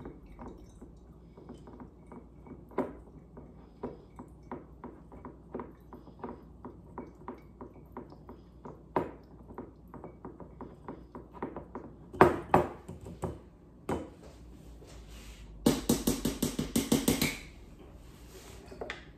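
A small metal mesh strainer clicking against a glass mason jar as lemon juice and pulp are worked through it, light taps about two a second. Then a few louder clatters and a quick run of about a dozen sharp knocks, the loudest sounds, near the end.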